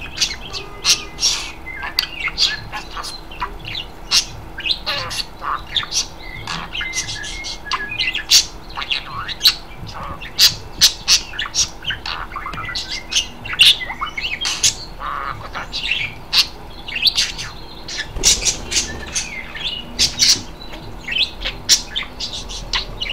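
Budgerigar chattering: a quick, unbroken stream of short, sharp chirps and squawks, several a second.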